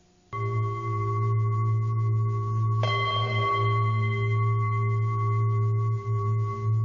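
Documentary score: after a moment of silence, a low steady drone with several sustained higher tones comes in suddenly. About three seconds in, a second, higher note is struck on top with a short hiss, and the tones hold.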